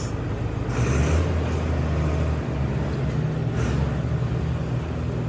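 A machine or engine running steadily with a low drone, heavier for a second or so about a second in, with a few short high hissing or scraping sounds over it.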